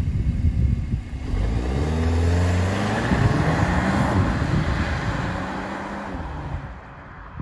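Cupra Formentor engine and exhaust in Cupra drive mode, accelerating hard away from a standstill, the revs climbing and dropping back at a couple of gear changes, then fading as the car drives off.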